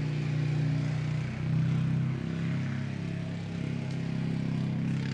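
Steady low mechanical drone, like an engine or motor running, holding an even pitch with a brief dip in level about a second and a half in.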